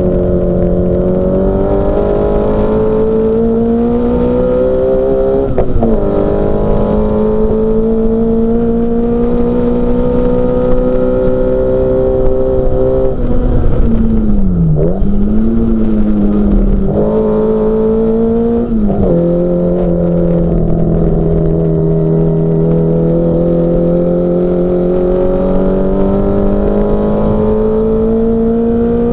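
Classic Mini Cooper S racing engine, a BMC A-series four-cylinder, running hard at race pace. Its note climbs slowly with speed and drops sharply at gear changes about 6 s in and again several times between 13 and 19 s, including a deep dip and recovery near 15 s as the car slows for a corner and accelerates out.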